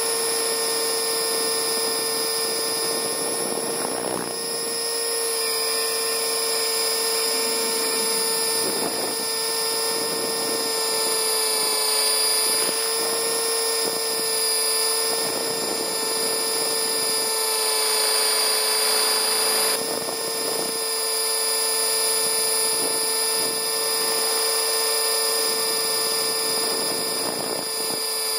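Align T-REX 600 electric RC helicopter in flight on a 6-cell LiPo, heard from the camera it carries: a steady high-pitched motor whine with the rotor's rushing noise, swelling and dipping slightly as it manoeuvres.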